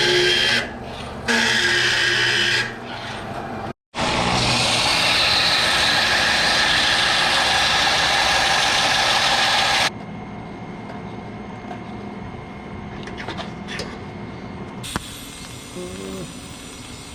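A power tool working steel tubing, running loud in short stretches twice and then for about six seconds, before dropping to a quieter shop background with a few small clicks and knocks.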